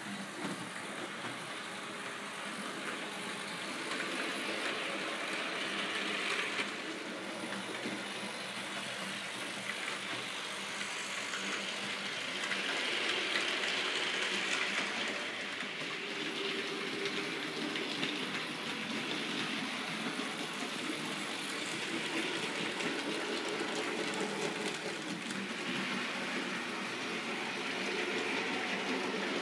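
HO-scale model trains running on DC track, their wheels rolling over the rails and rail joints with the whir of the small electric motors. The sound swells as trains pass close, most strongly about halfway through and again near the end.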